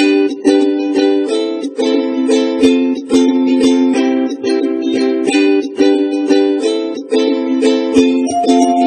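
Background music: a plucked string instrument, ukulele-like, strumming chords in a steady rhythm.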